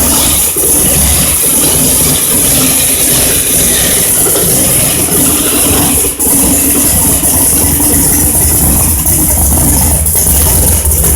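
Supercharged stroked 440 Mopar V8 with a 6-71 blower, running steadily at idle through a 3.5-inch exhaust with Dynomax Ultraflow mufflers. It is loud, but not ridiculously loud.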